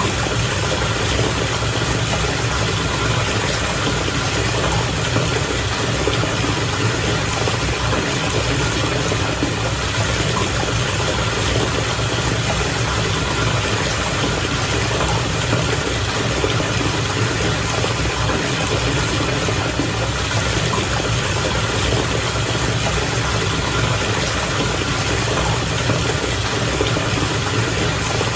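Bath water bubbling and churning steadily, with a low rumble underneath.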